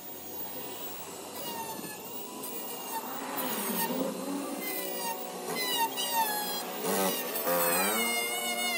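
Small rotary tool with a cut-off wheel cutting a thin ABS plastic front lip spoiler: a high whine whose pitch keeps sliding down and back up as the wheel bites into the plastic, louder in the second half.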